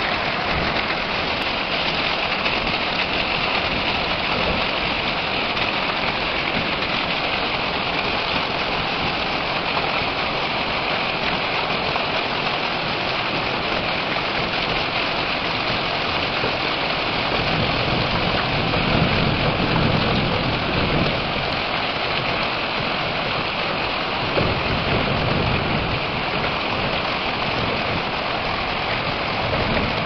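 Heavy rain falling steadily on gravel, a dense patter of drops. A deeper low rumble swells up twice in the second half.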